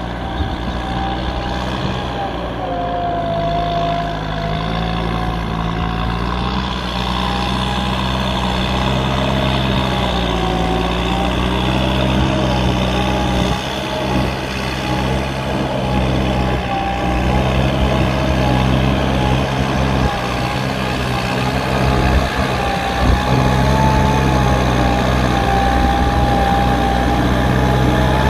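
Kubota M9540 tractor's four-cylinder diesel engine running steadily, with a wavering whine over it, growing slightly louder.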